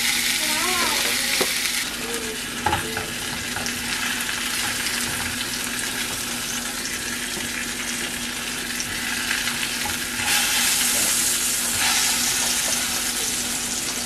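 Split hot dogs sizzling in a nonstick frying pan, with a plastic spatula scraping and tapping a couple of times as they are turned and lifted out. The sizzle is louder at the start and again about ten seconds in.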